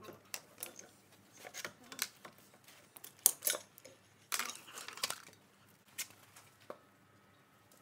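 Steel brake plates and friction discs of a Ford 4100 tractor's rear axle brakes clinking and knocking as they are worked loose and lifted out by hand: irregular metal clinks, with a short scraping rattle about four and a half seconds in.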